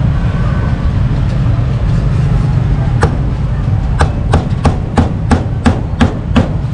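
Steel cleaver chopping grilled beef on a round wooden chopping block: one sharp chop about three seconds in, then a steady run of about eight chops at roughly three a second. A steady low rumble runs underneath.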